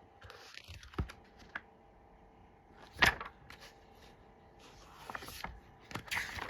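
Yearbook pages being handled and turned: soft rustling swishes of paper and a few sharp taps, the loudest about three seconds in.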